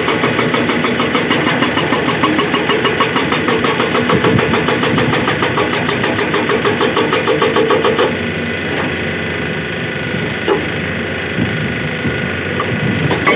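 SHS 81 hydraulic rock breaker on an excavator hammering rock with rapid, evenly repeated blows over the carrier's engine. About eight seconds in, the hammering stops and only the engine is left running, with a few single knocks.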